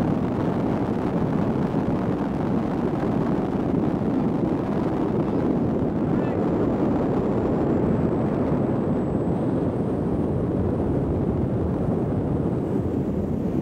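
Steady rushing of wind on the microphone aboard a motorboat under way, with the boat's engine and water noise blended in.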